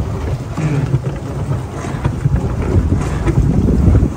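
Wind buffeting the microphone: a gusting low rumble that swells toward the end.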